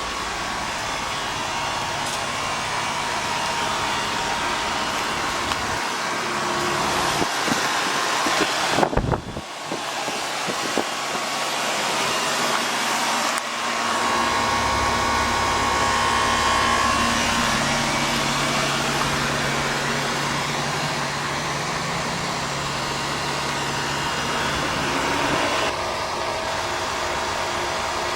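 Westinghouse MED40P3 40-pint dehumidifier running, very noisy: a steady rush of fan air with a faint whine. There is a sharp knock about nine seconds in, and a low hum sets in around fourteen seconds.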